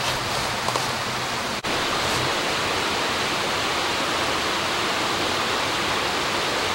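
A steady rushing hiss, with a brief dropout about one and a half seconds in.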